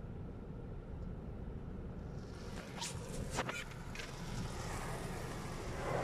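Automatic car wash heard from inside the car: a steady low rumble of the wash machinery. About two seconds in, water spray begins hissing against the glass, with a few sharp slaps as the jets hit.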